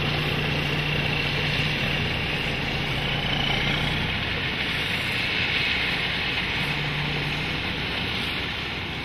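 Semi-truck's diesel engine running steadily with a low hum as the tractor and dump trailer pull away, getting slightly quieter near the end.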